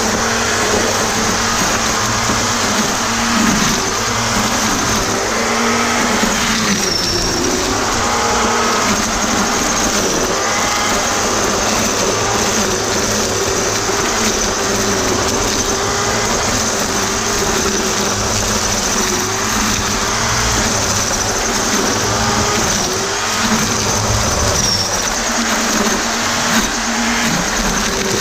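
Black & Decker GL7300 700-watt electric string trimmer running steadily, its nylon line whirring through grass; the motor's whine wavers and dips slightly now and then as the load changes.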